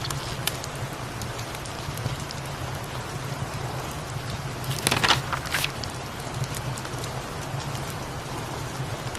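Steady rain falling, with a low steady hum underneath; about five seconds in, a short, louder burst of clicking noise stands out.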